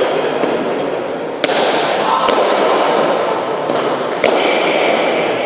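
A Basque pelota ball striking the walls and floor of an indoor fronton court, each hit sharp and echoing in the hall. There are four impacts, two about a second and a half to two seconds in and two more near four seconds, over a steady hall murmur.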